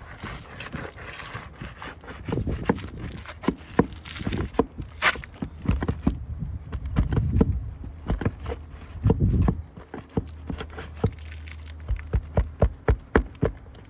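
Asphalt roof shingles being pried up and worked by hand to reach the nails: a run of sharp clicks, taps and scrapes, with a few low rumbles.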